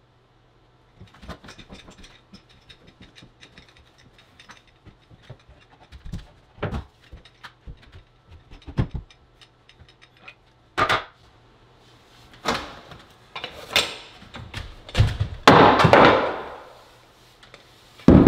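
Scattered knocks and clicks, faint and sparse at first, growing louder and closer together in the second half, with a few heavy thuds near the end.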